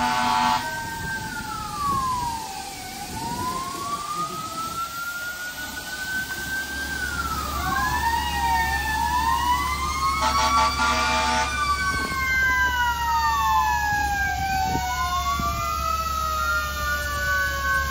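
Several fire engine sirens wailing at once, their pitches rising and falling and crossing over each other. A held air horn blast ends about half a second in and another sounds for over a second about ten seconds in, over a low rumble.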